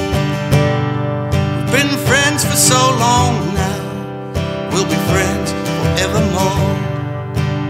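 Acoustic guitar strummed steadily, with a wordless vocal line wavering over it in two phrases, from about two seconds in and again near the five-second mark.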